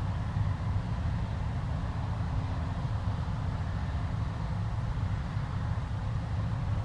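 Claas Lexion 670 combine harvester running steadily at work, a constant low drone.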